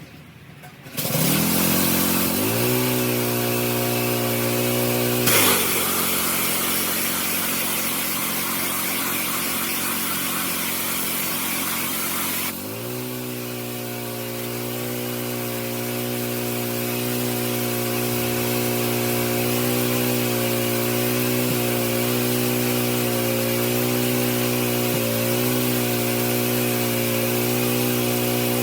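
Gas pressure washer's 11 hp Honda single-cylinder engine starting about a second in, speeding up, then running steadily. From about five to twelve seconds in, a loud hiss of water spray runs over it. When the spray stops the engine speeds up again and runs on steadily.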